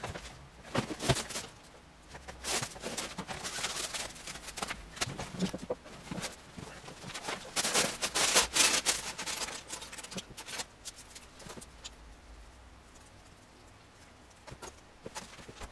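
Plastic Lego pieces clattering and clicking as they are handled and pressed together, in quick dense runs that are loudest about eight seconds in and thin out to scattered clicks near the end.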